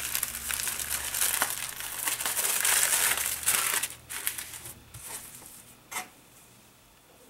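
Tissue paper crinkling as it is pulled open by hand, steadily for about four seconds, then a few short rustles and one sharper crackle before it dies away.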